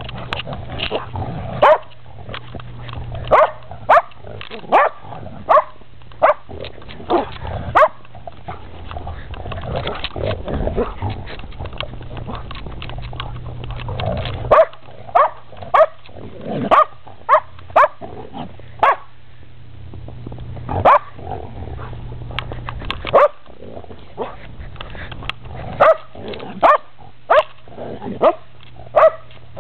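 A puppy barking in play: sharp single barks in quick runs of several, about one a second, broken by pauses of a few seconds.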